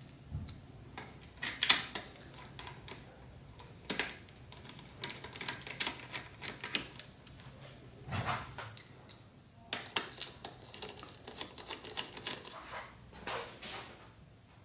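Metal handlebar clamp parts and hand tools being handled and fitted: irregular clicks and light knocks, the loudest about two seconds in.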